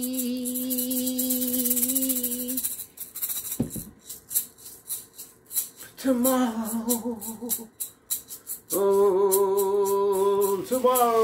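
A man singing long held notes while shaking a handheld maraca in a quick, steady rattle. His voice breaks off about two and a half seconds in, leaving the maraca and a thump. Around six seconds in he sings again with a falling phrase, then holds another note near the end.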